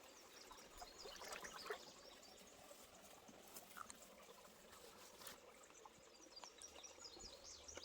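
Faint trickling of a shallow creek, with a few faint high chirps in the second half.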